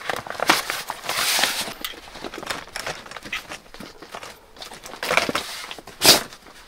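Nylon seat of a Mission Mountain folding camp chair rustling and swishing as it is pulled over the chair's metal frame, in irregular bursts with the loudest swish about six seconds in.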